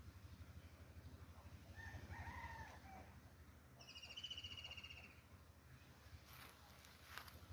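Faint rooster crowing once, about two seconds in. About four seconds in comes a brief, high, pulsing insect trill, over a low hum. No cow is heard.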